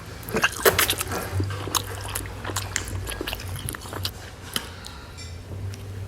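Close-up mouth sounds of someone eating stuffed chicken and Alfredo pasta: chewing with many irregular wet clicks and smacks. A low steady hum runs underneath.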